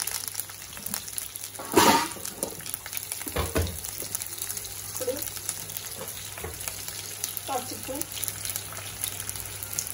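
Green chillies and curry leaves sizzling in hot oil in a nonstick kadai, with mustard seeds and cumin, for a tempering (tadka). Fine crackling runs steadily, with one sudden louder burst about two seconds in and a smaller one a second and a half later.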